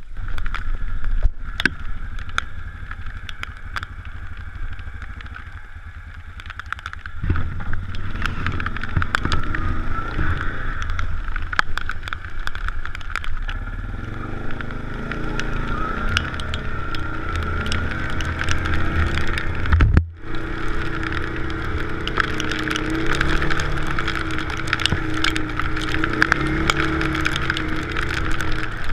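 Off-road quad bike or side-by-side engine running under way, quieter for the first several seconds and then louder, with its engine note rising and falling. Rain ticks and wind on the microphone throughout.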